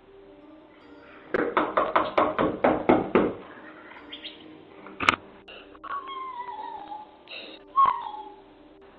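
Rapid knocking on a door, about nine knocks in two seconds, then a single sharp knock and two falling, cat-like yowls.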